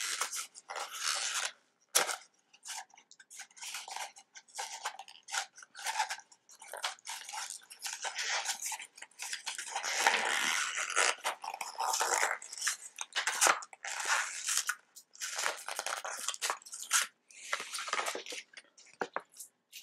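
Paper wrapping being handled and torn open by hand: a busy run of irregular crinkling, rustling and ripping.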